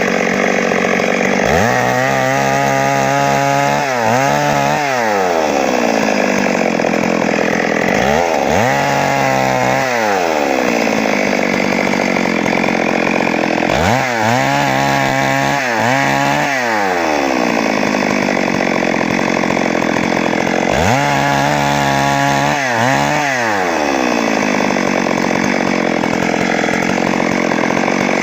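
Stihl MS 382 two-stroke chainsaw running after a stuck-piston repair, its engine speed swinging down and back up twice in quick succession, four times over, with steadier running in between.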